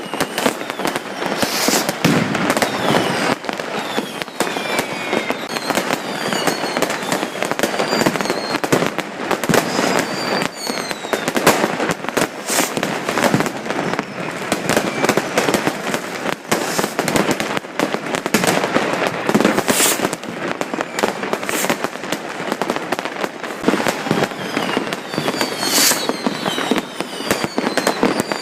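Dense, non-stop New Year's fireworks and firecrackers: overlapping bangs and crackling, with short whistles sliding down in pitch from whistling fireworks throughout.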